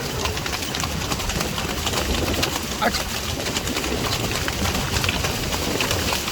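Sea waves washing on the beach, a steady rushing noise with scattered small clicks, and a short call about three seconds in.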